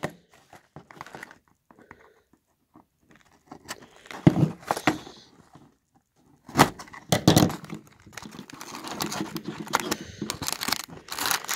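A cardboard LEGO VIDIYO minifigure box being handled and torn open by hand: scattered small clicks and taps, sharp tearing bursts about four and seven seconds in, then denser rustling and crinkling near the end as the box is opened.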